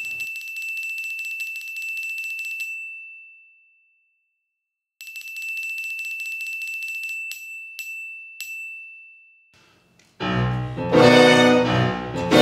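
Electric bell ringing: one long ring of about three seconds, a pause, another ring of about two seconds, then three single strikes whose tone dies away. The orchestra comes back in with strings near the end.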